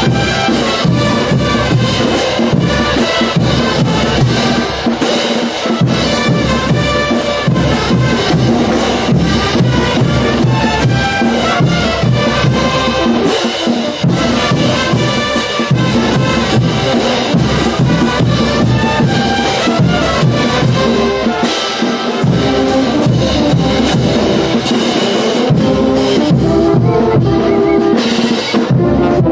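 Brass band playing a lively tune: brass instruments carry the melody over a bass drum and snare drum keeping a steady beat.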